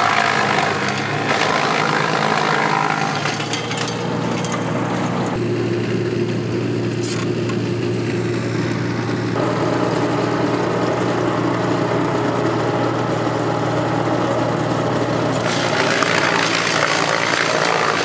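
Tracked wood chipper running steadily, chewing branches fed in by an excavator grab, with a harsher, brighter chipping noise at the start and again near the end; between, the machine runs with less load.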